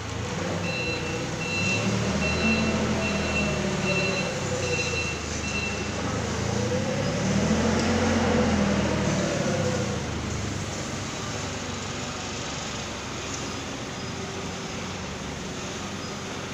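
Forklift engine revving up and back down twice as the truck manoeuvres, with its reversing alarm beeping at an even pace, about seven beeps, over the first six seconds.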